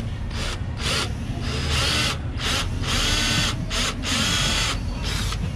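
Cordless drill boring a hole into a bumper nudge-guard panel, run in about eight short bursts, each start and stop giving a rise and fall in the motor's pitch.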